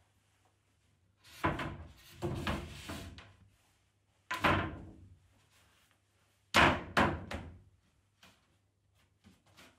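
Wooden floor panel knocking and thudding against a 2x4 loft frame as it is pushed up and settled into place: a run of knocks about a second and a half in, another at about four and a half seconds, and the loudest pair near seven seconds.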